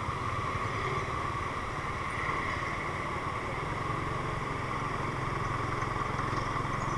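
Motor scooter's small engine running steadily as it is ridden slowly in traffic, heard as an even, unbroken drone.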